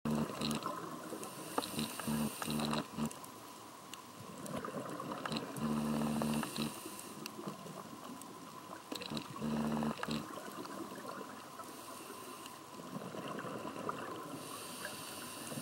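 Scuba diver breathing through a regulator, heard underwater, in a slow repeating cycle. Each breath is a hissing inhale followed by a gurgling rumble of exhaled bubbles.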